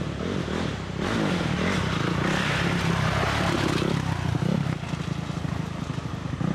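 Dirt bike engine revving hard and held at high revs, loudest from about a second in until near five seconds, then easing off. This fits a stuck rider trying to power the bike free.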